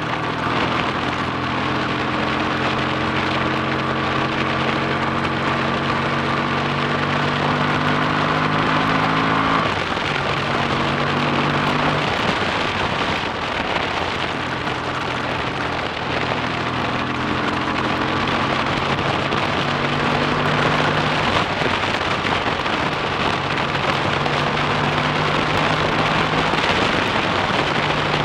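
Freshly rebuilt BSA A65 Thunderbolt 650 cc parallel-twin engine pulling the bike along, its note rising slowly, then breaking off about ten seconds in and a few times later as it changes gear or eases off, and rising again. A heavy steady rush of wind on the handlebar microphone runs under it.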